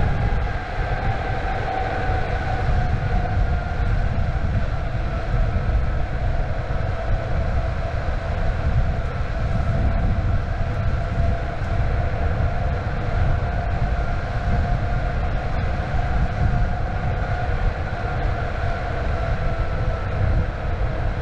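Electric skateboard with direct-drive motors cruising at speed: a steady whine from the motors that slowly drops in pitch, over a constant low rumble of wheels on pavement and wind.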